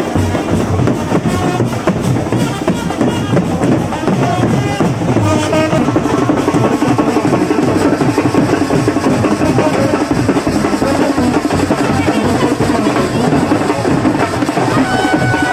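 A brass band playing: trumpets and horns carry the tune over a steady beat on a large marching bass drum, with a dancing crowd mixed in.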